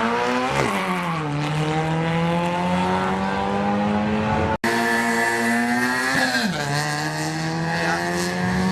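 Drag-race car engines held at high revs, with a quick rise and fall in pitch near the start and another drop a little before the end. The sound cuts out for an instant a little past the halfway point.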